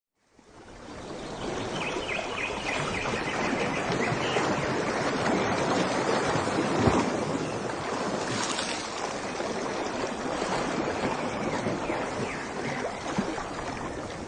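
Rushing water fading in from silence over about a second, then a steady splashing flow, with one louder splash about halfway through.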